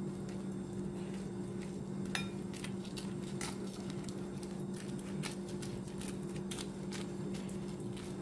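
Thin plastic bag crinkling in quick irregular crackles as fingers knead mayonnaise and ketchup inside it, over a steady low hum.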